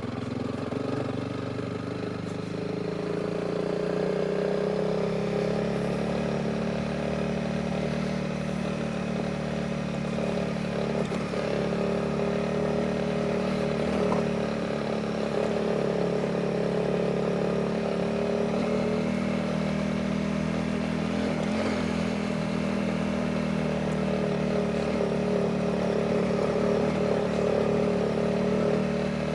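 Honda CRF300 Rally's single-cylinder engine running under way, its pitch rising over the first few seconds and then holding steady at cruising speed.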